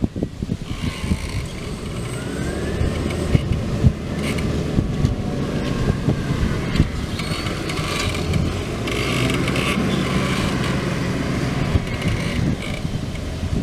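Same Diamond 265 tractor's Deutz 1013 six-cylinder diesel running steadily under ploughing load, with a high whine over the engine and scattered knocks and rattles.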